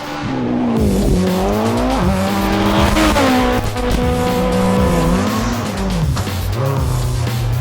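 Group A BMW M3 E30 rally car's four-cylinder engine running hard, its pitch climbing and dropping again several times as it revs and changes gear, with music playing underneath.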